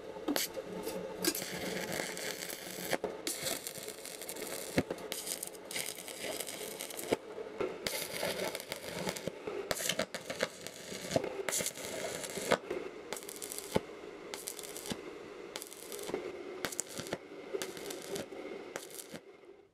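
Stick (MMA) arc welding on steel plate: the arc crackles and sizzles steadily with sharp pops, laid down in several runs broken by short pauses.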